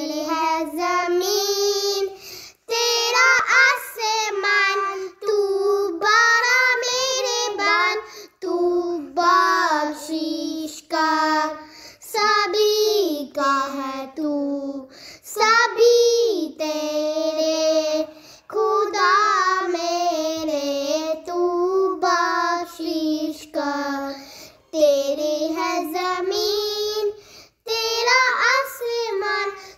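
A child singing a hamd, a song in praise of God, solo and without instruments. The singing comes in phrases of a few seconds with short breaths between.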